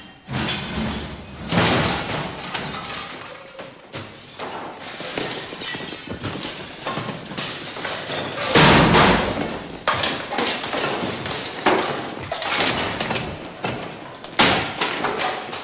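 A hospital ward being smashed up with clubs: irregular crashes, thuds and breaking, one every second or two. The loudest crash comes a little past the middle.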